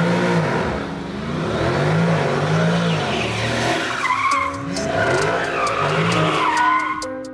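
Car engine revving up and falling back several times, with a heavy hiss of tyre noise, like a burnout or hard launch.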